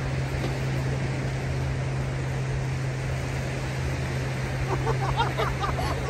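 Sea surf washing steadily on a sandy beach, with a steady low hum beneath it. Faint distant voices come in near the end.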